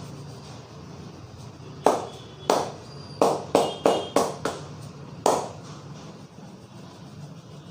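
Barber's hands slapping and clapping on a customer's head during a head massage: about eight sharp claps over three and a half seconds, a quick run of them in the middle.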